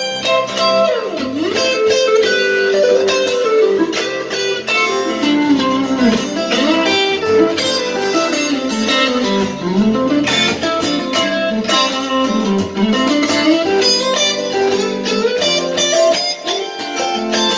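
Guitar playing a calm, melodic passage through a compressed acoustic-guitar sound, with notes that sustain evenly. Several times the pitch swoops down and back up.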